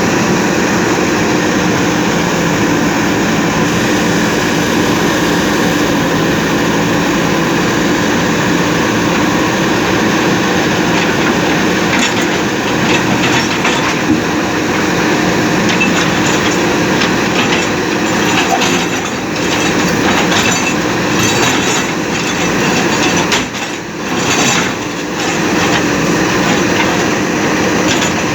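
JCB backhoe loader diesel engines running steadily under load while demolishing a bridge, with scattered knocks and clatter of the buckets working. The sound drops briefly about 24 seconds in.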